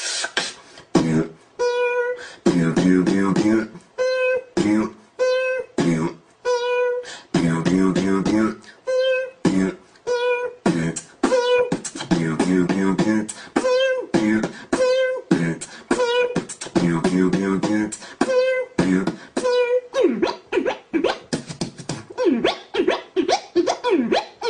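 Beatboxing: a rhythmic pattern of short held notes, clicks and a wobbling bass made with the mouth, the phrase repeating about every five seconds. Near the end it turns into a fast run of quick sweeping sounds.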